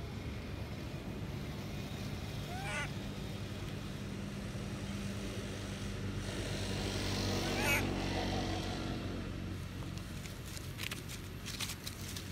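A motor vehicle engine running, growing louder as it passes close in the middle and then fading, with two short, high, wavering squeals, one near the start and one as the vehicle is loudest.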